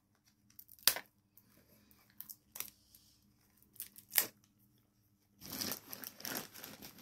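Hands opening a small cosmetics product box: a couple of sharp clicks and light ticks, then from about five and a half seconds in a steady crinkling and tearing of its packaging.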